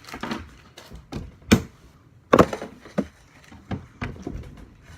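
Several separate knocks and thuds of objects being handled and set down, the loudest about halfway through.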